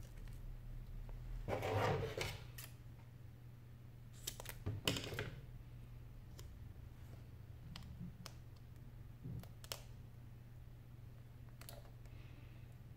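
Small clicks, taps and rustles of hands handling disassembled smartphone parts and tools on a work mat, loudest about two and five seconds in, over a steady low hum.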